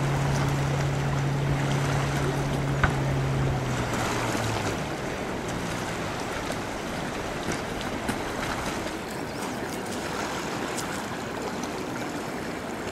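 An engine's steady low hum fades out about four seconds in, over a steady rushing wash of river water and wind.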